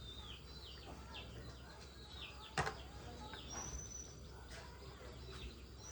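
Birds calling, with a string of short downward-sliding chirps repeating about twice a second and a couple of brief high whistles. A single sharp knock about two and a half seconds in is the loudest sound.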